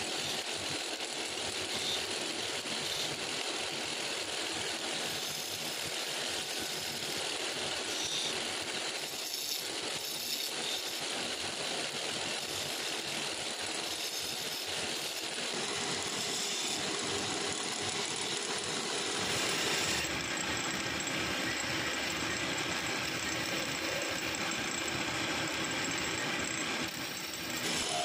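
Wood lathe running while a hand-held chisel cuts into a spinning wooden blank. The steady scraping hiss of the tool on the wood mixes with the noise of the running machine.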